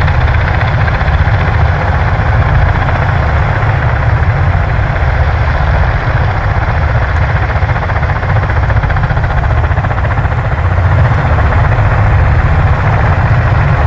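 Marine Corps V-22 Osprey tiltrotors idling on the ramp, their turboshaft engines and rotors making a steady, loud, deep drone.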